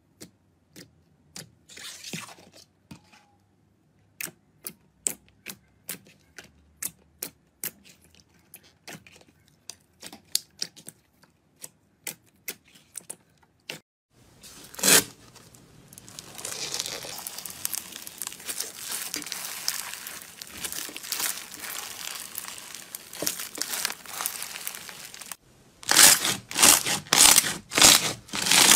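Slime being worked by hand. First, glossy slime gives sharp sticky pops about once or twice a second as fingers poke it. Then comes a dense, steady crackling of foam-bead slime (floam). Near the end there are loud crunches in quick succession as hands press the foam-bead slime.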